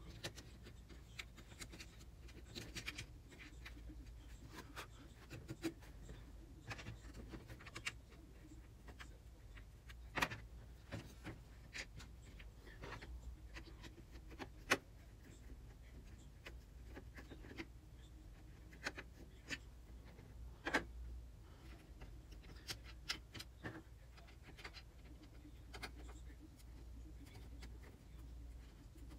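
Irregular faint clicks and taps of a plastic sunroof sunscreen frame and its rail being handled and pressed into place, with a few sharper knocks among them, over a low steady hum.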